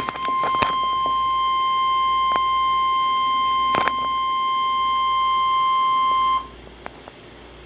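NOAA Weather Radio 1050 Hz warning alarm tone: one steady high beep held, with a few short clicks of static over it, cutting off suddenly about six and a half seconds in. The tone signals that a warning is about to be broadcast.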